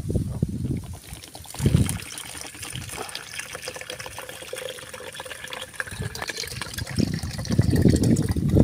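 Coconut water trickling and splashing from a freshly opened green coconut into a plastic container, with low bumps from handling the coconut near the start and again near the end.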